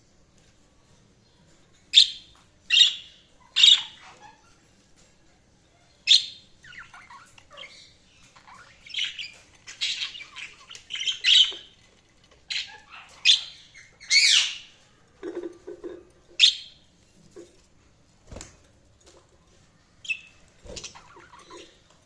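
Budgerigars chirping and squawking in short, sharp, high calls that come irregularly, singly and in quick clusters. Two brief knocks sound near the end.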